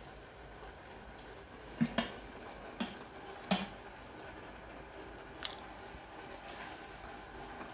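Someone chewing a mouthful of spaghetti in cream sauce close to a clip-on microphone, with a few sharp clicks from about two seconds in and one more about five and a half seconds in.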